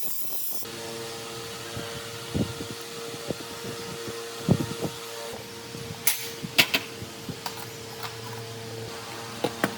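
A small electric motor running with a steady hum, with a few sharp knocks and clicks of metal over it.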